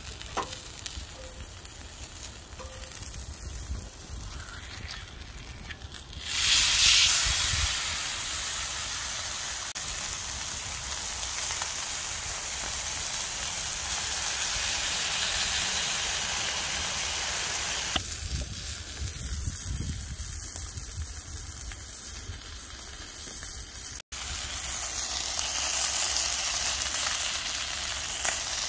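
Shredded potatoes and a beef burger patty sizzling in a hot skillet on a Coleman butane camp stove. The sizzle jumps up loudly about six seconds in and holds steady, eases for a few seconds past the middle, then cuts out for an instant and comes back as strong.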